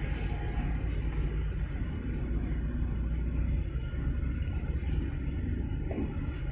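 Steady low rumble of a large container ship's engine and propeller as it passes slowly close by.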